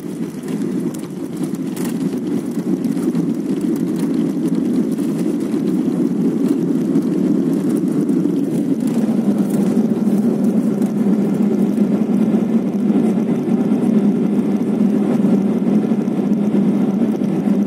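Airliner cabin noise during landing on the runway: a steady, loud rumble of the jet engines and the wheels, with two brief knocks in the first two seconds. It grows louder about two seconds in and settles into a deeper rumble about nine seconds in, with the wing spoilers raised on the rollout.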